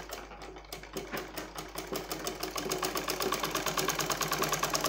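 Black domestic straight-stitch sewing machine stitching at an even pace, its needle mechanism ticking rapidly and regularly. It is softer for about the first second, then runs steadily.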